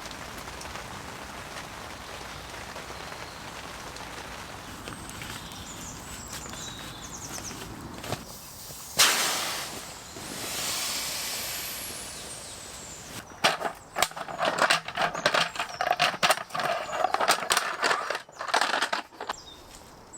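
Steady rain falling on tent fabric. About nine seconds in there is a loud rustle. The last several seconds hold a busy run of quick knocks and rustles, the sound of gear being handled.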